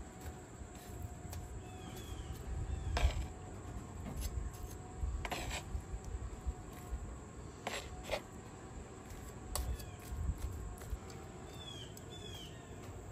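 Metal kitchen tongs clicking against a stainless steel taco holder a handful of times, a couple of seconds apart, as filling is dropped into the shells, over a low rumble. A few faint, short high chirps come about two seconds in and again near the end.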